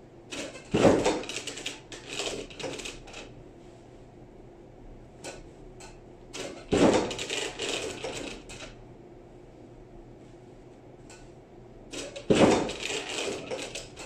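Plastic clunks and rattling from a flatbed steam ironing press as its hinged lid and the clothes on it are worked, in three bouts about six seconds apart, each opening with a sharp knock.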